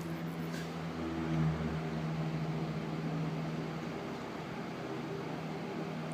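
KDK exhaust fan running with a steady hum and rush of air, with loose fan blades spinning in its draft just behind it, causing a weird extra hum that sounds like a fan spinning down. The hum swells and deepens about a second in, then settles back to a steady drone.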